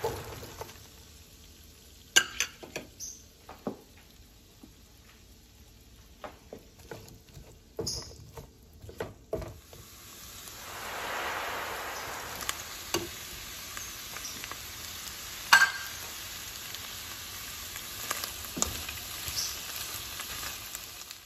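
Sliced onions and tomato wedges frying in hot oil in a nonstick pan: scattered clatters and knocks as food drops in and a spatula works the pan, then a steady sizzle that swells up about halfway through and goes on under further knocks, the sharpest about three-quarters of the way in.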